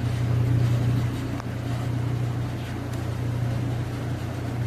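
Steady low machinery hum, an even drone with no rise or fall and a faint click or two.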